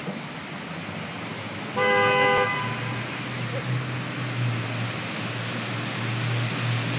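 A car horn honks once, a bit under a second long, about two seconds in, over steady wet-road traffic noise; a low engine hum sets in just after and runs on.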